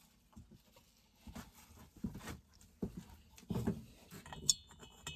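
Metal chainsaw engine parts handled on a workbench: scattered light knocks, rubs and clatter, with a sharp metallic clink that rings briefly near the end.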